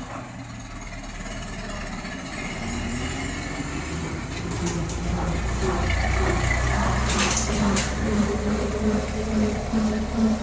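Small narrow-gauge diesel locomotive running past close by, its engine note and low rumble growing louder over the first half as it draws level. There are a couple of sharp knocks midway.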